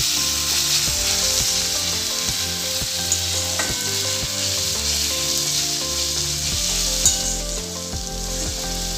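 Onion, ginger paste and freshly added garlic sizzling steadily in hot oil in a pan as it is stirred, with a few sharp clicks of the spoon against the pan. The garlic is being fried until its raw smell cooks off, before the spices go in.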